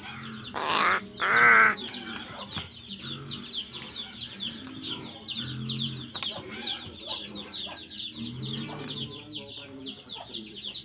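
A crow gives two loud, harsh caws in quick succession about a second in. After that a long run of thin, high, falling chirps from other birds follows, several a second.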